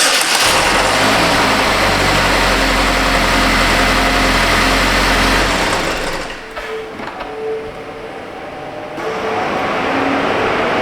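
2012 Buick LaCrosse 2.4L eAssist four-cylinder engine starting and running at idle. The engine note drops back about six seconds in, and a steady rushing noise builds from about nine seconds.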